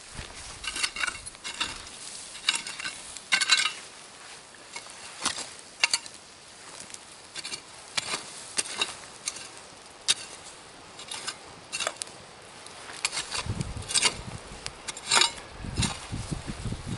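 Wooden pole and shovel scraping and poking through ash, embers and loose soil in a fire pit, with irregular crunches and clatters. Near the end there is a lower rumbling as soil is pushed into the pit.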